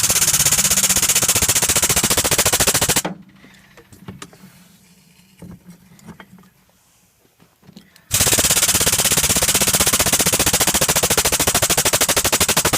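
Power hammer striking hot blade steel in a rapid, even run of blows while drawing out the taper; it stops about three seconds in. After about five quieter seconds with a few light knocks, it starts up again at the same pace.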